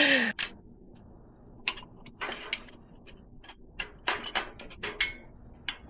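Irregular light clicks and taps of camping gear being handled and set down, about a dozen over a few seconds, over a faint steady high tone.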